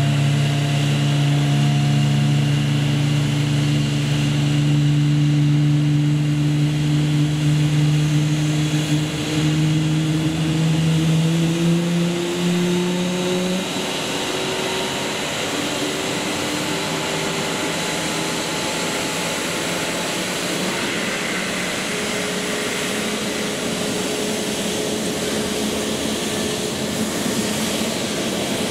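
Airbus A320neo airliner's jet engines running at low power: a steady hum with tones that climb slowly, then the strongest low tone drops out about 14 seconds in and a quieter, even hum carries on.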